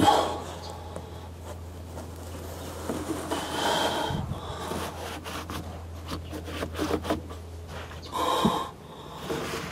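A man shifting about in a cramped space under a boat deck: rubbing and scraping of his body against the carpeted hull and plywood, with a few heavy breaths or grunts about three and eight seconds in. A steady low hum runs underneath and drops out about four seconds in.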